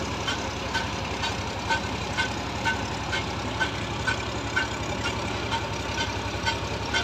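Heavy crane's engine running steadily under load while lifting a concrete girder, with a short, regular tick about twice a second.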